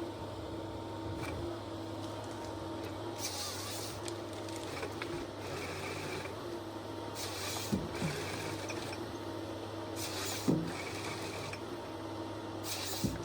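A heavy forestry machine running: a steady low engine hum, with a short hiss every few seconds and a few sharp knocks in the second half.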